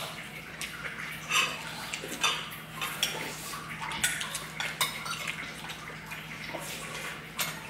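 Spoons and tableware clinking against bowls and dishes in scattered light knocks, over a steady low hum.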